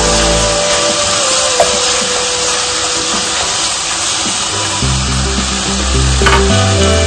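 Background music with held notes and a bass line, over the steady sizzle of diced tomatoes and onions sautéing in oil in a pan. A short click comes about six seconds in.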